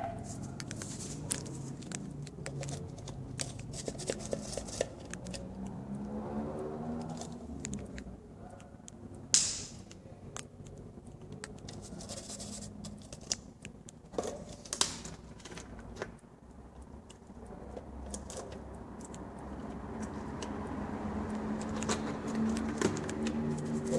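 Handling noise: scattered clicks, taps and crinkles of hands working a plastic cup and painting things, with a sharper scrape about nine seconds in.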